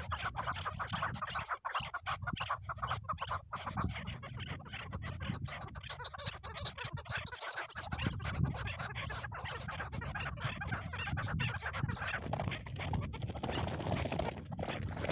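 Chukar partridges calling: a rapid run of repeated cackling notes over a low rumble.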